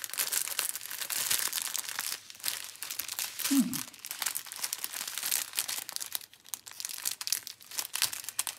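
Crinkling of a clear plastic packet of diamond-painting drills being handled while looking for the end to open it. A brief low falling tone sounds once, a little before halfway.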